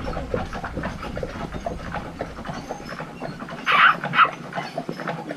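Carriage horses' hooves clopping on pavement in an irregular run of knocks as the horse-drawn carriage rolls along. Two short, loud noises come close together about four seconds in.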